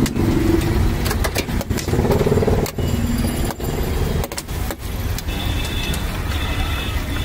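Busy street ambience: a steady rumble of traffic and engines, with scattered sharp clinks and clicks from the first second to about five seconds in. Steady high tones come in after about five seconds.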